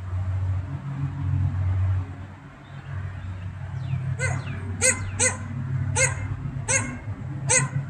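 A low, uneven rumble, then from about four seconds in a dog barking: six short barks, less than a second apart.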